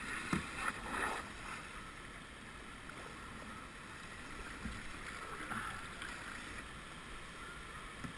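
River water rushing and splashing around a kayak on a river running at about 6.5 cubic metres a second, with a few short knocks and splashes, likely from the paddle, in the first second or so.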